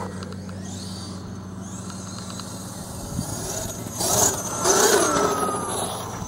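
The Lehner LMT 3080/6 brushless electric motor of a 1/5-scale Losi 5IVE-T RC truck whining as the car speeds past. It is loudest from about four seconds in, for nearly two seconds, with its pitch rising and falling.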